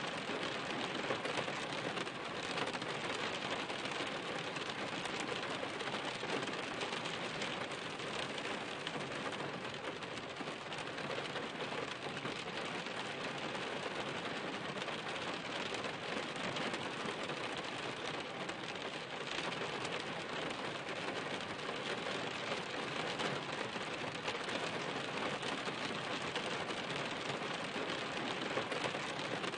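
Steady rain falling: a dense, even spatter of many drops, unbroken throughout.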